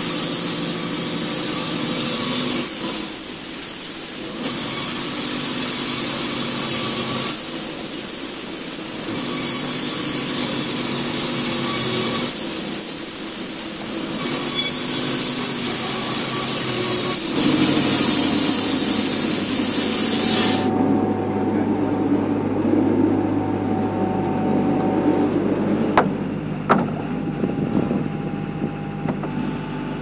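Wood-Mizer LT70 electric band sawmill cutting along a log: a loud, steady hiss of the blade through the wood over the mill's hum, which cuts off suddenly about two-thirds of the way through. After that a steady machine hum continues, with a few sharp knocks near the end.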